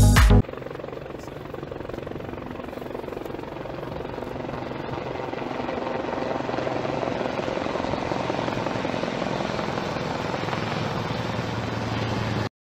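Aircraft engine noise: a steady rushing drone with a faint hum that grows slowly louder, like an aircraft taking off.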